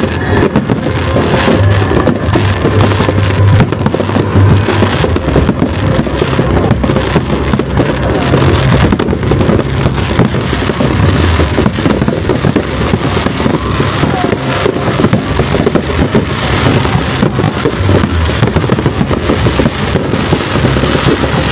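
Dense fireworks barrage: many aerial shells and crackling stars bursting at once, giving a continuous crackle with heavy low booms, with music playing along.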